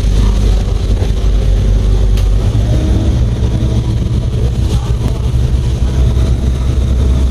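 Steady low drone of a vehicle driving along a wet road, heard from inside its cabin, with tyre hiss and a couple of light clicks or rattles partway through.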